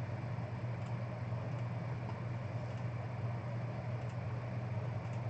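Steady low hum of room and equipment background noise, with a few faint clicks of a computer mouse as the randomize button is pressed.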